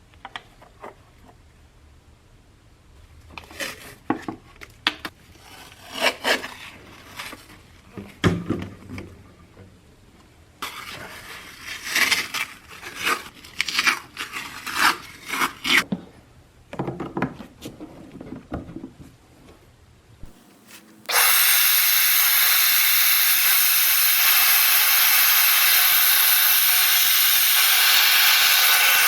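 Clicks, knocks and scraping of parts and tools being handled. Then, about two-thirds of the way in, a shop vac switches on suddenly and runs with a loud, steady hiss of rushing air.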